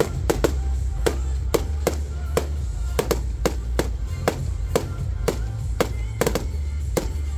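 Fireworks display: sharp bangs and pops go off irregularly, about two or three a second, over music with a sustained low bass line.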